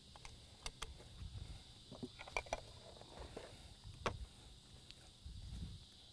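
Metal pellet tins and their lids being handled on a shooting bench: a handful of sharp clicks and clinks, the loudest about four seconds in, with a short rustle near the end. A steady high insect buzz runs underneath.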